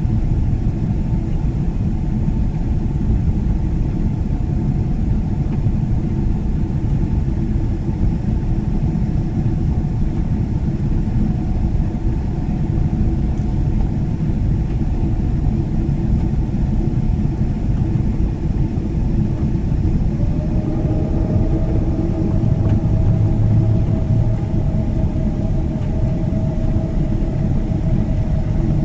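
Cabin noise of a Boeing 777-300 climbing after takeoff: the steady, loud low rumble of its twin jet engines and airflow, with a new steady hum joining about twenty seconds in.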